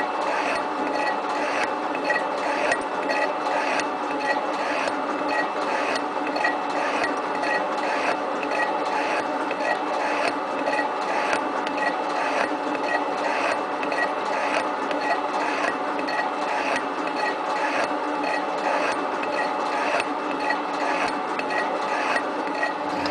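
7305T metal shaper running steadily, its gear drive humming under a regular repeating click as the ram strokes back and forth, with a rasping scrape of the cutter planing metal.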